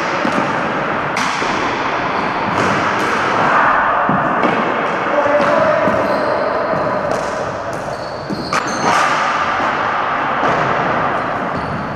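Ball hockey play on a hardwood gym floor: repeated sharp knocks of sticks striking the ball, sticks clacking together and the ball hitting the floor, each echoing around the gymnasium. A few brief high squeaks of sneakers are heard between the knocks.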